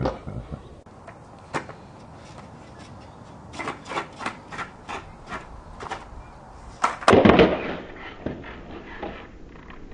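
Skateboard on a concrete ledge: a string of sharp clicks and knocks from the board and trucks, then a loud clatter about seven seconds in as the board comes down hard and rolls on the concrete.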